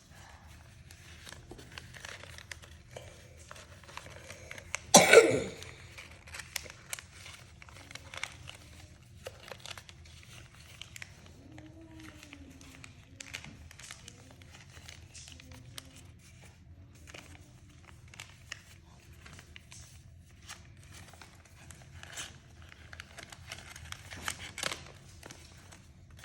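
Paper and card being handled, crinkling and rustling with many small taps and clicks. There is one loud short burst about five seconds in.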